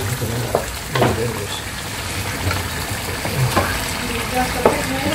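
Chicken pieces sizzling in spice sauce in a stone-coated non-stick pan while being stirred and turned with spatulas, which scrape and knock against the pan a few times.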